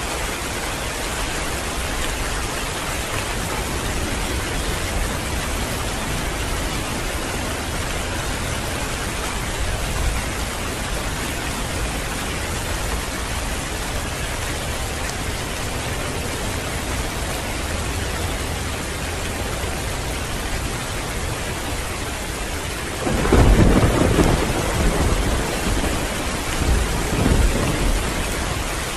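Heavy rain falling steadily. About 23 seconds in, a loud rumble of thunder breaks in and rolls on in waves for several seconds.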